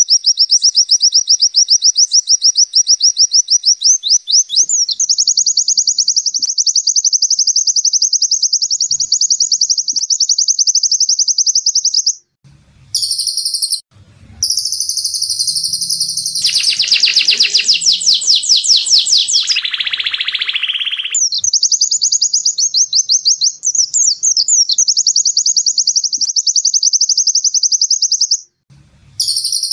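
A white-eye (pleci) singing long, rapid, high trills in the zipper-like 'ngecir' style. The song breaks off suddenly around the middle and again near the end. In between, a denser, more varied warbling song dips lower in pitch for several seconds.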